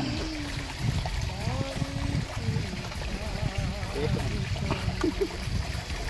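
Stream water running and trickling over rocks, a steady rushing noise, with faint voices in the background.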